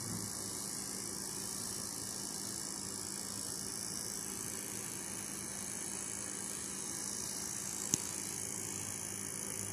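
Steady low hum and hiss of room background noise, with one sharp click about eight seconds in.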